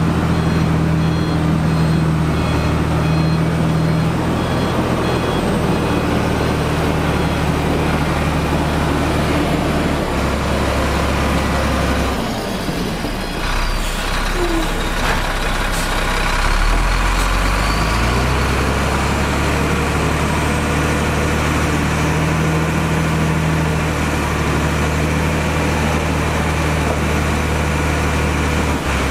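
Heavy diesel earthmoving machinery running steadily under load, with a reversing alarm beeping in the first few seconds. The engine note drops away for a few seconds around the middle, then comes back.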